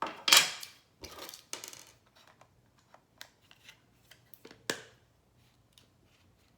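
Handling noises from a smart video doorbell's casing and screw: a loud scrape just after the start, a few more scraping strokes about a second later, then scattered small clicks and taps, with one sharper click near five seconds.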